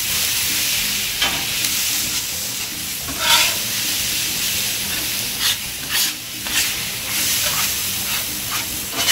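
Diced hash brown potatoes with peppers and onions sizzling in oil on a Blackstone flat-top griddle, with several sharp scrapes of metal spatulas on the steel as they are tossed and turned.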